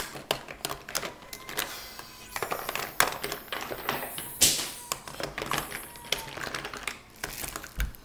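Makeup items being rummaged through and handled close to the microphone: quick, irregular clicks and clatter of small plastic cases and pencils, with two sharper knocks about three and four and a half seconds in.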